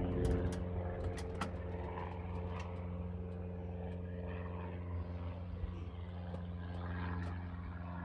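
Steady low machine hum with an even pitch, as of an engine running at idle, and a few light clicks and knocks in the first second and a half.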